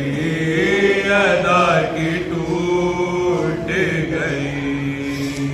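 Men's voices chanting an Urdu noha, a Shia lament for Fatima, unaccompanied, in long held notes that waver and glide between the words.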